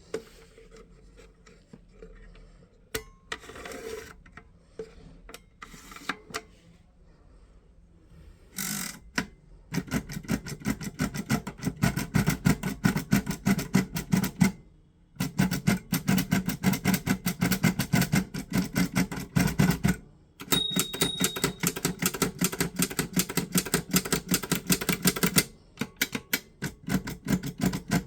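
Perkins Brailler being typed on: scattered key clacks at first, then a long run of rapid, even clacks from the keys and embossing heads, broken by two brief pauses and thinning out near the end.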